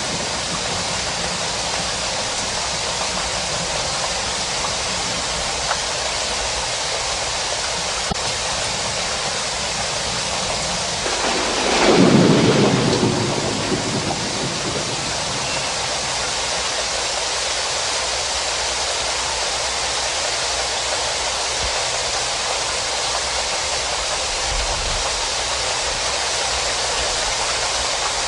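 Steady rain falling in a continuous hiss, with one roll of thunder that swells about eleven seconds in and fades over the next few seconds.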